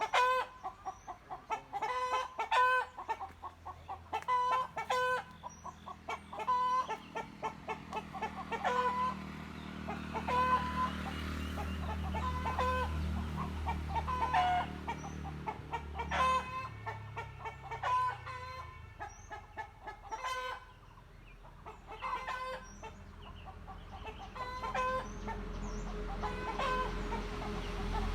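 Chickens clucking over and over in short repeated calls. A low hum swells and fades in the middle.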